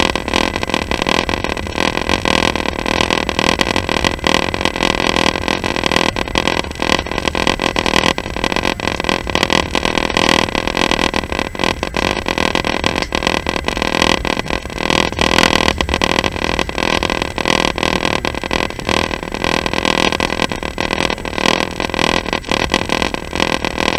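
Passenger train in motion, heard from inside the carriage: a steady loud rumble with dense irregular rattling and clicking from the wheels and track.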